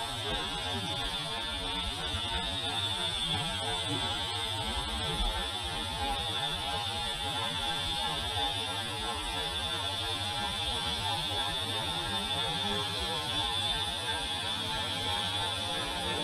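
Compressed-air gravity-feed spray gun hissing steadily as it sprays red paint onto a scooter's metal leg-shield panel, with a low rumble underneath.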